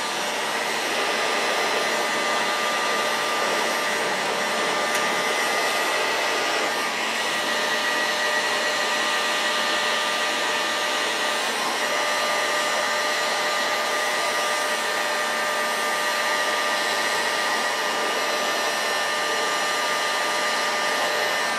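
Electric heat gun blowing steadily: the rush of hot air with a steady whine from its fan motor, warming an aluminium engine crankcase for thermal expansion before a bearing is fitted.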